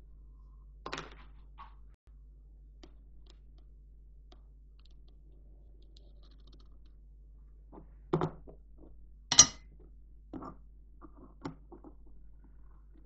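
A steel socket and a scriber handled on a steel plate while a circle is traced around the socket's base: scattered light clicks and scrapes, with a sharp metal knock about nine seconds in, the loudest sound, and a smaller cluster just before it. A faint steady hum runs underneath.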